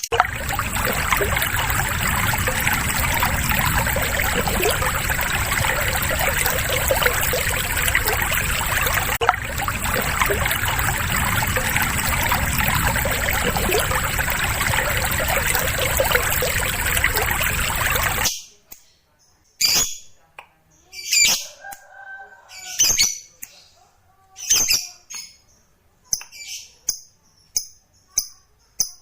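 Lovebird giving its long, unbroken chattering trill (ngekek) over a steady high whine. It cuts off abruptly after about eighteen seconds. Short, separate sharp bird calls follow, then a run of evenly spaced chirps about two a second.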